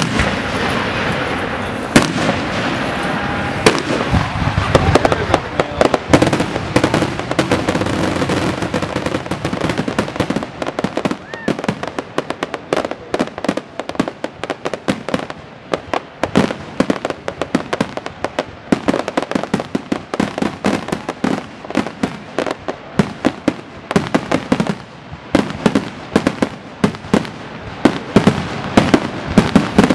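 Aerial fireworks display: a rapid barrage of shells bursting and crackling, dozens of sharp bangs coming close together and densest near the end.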